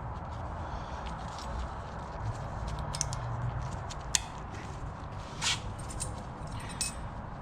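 A few short, light metal clicks as brake pad clips are handled and snapped into a brake caliper mounting bracket, over a low steady background hum.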